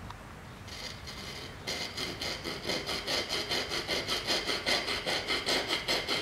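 Curved-blade hand saw cutting the bow-drill notch into a pine hearth board, with quick back-and-forth strokes, about four a second. The strokes start faint and grow stronger about a second and a half in.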